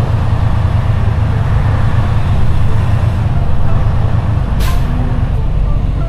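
Semi truck's diesel engine running at low speed, heard from inside the cab as the truck manoeuvres, with a short hiss of air from the air brakes about four and a half seconds in.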